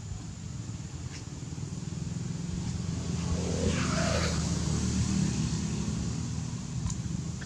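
A motor vehicle passing by: a low engine rumble that swells to its loudest about halfway through and then fades.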